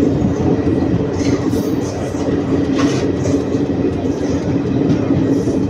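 Passenger train running on the rails, heard from inside a carriage: a steady rumble of wheels and carriage with a constant low hum.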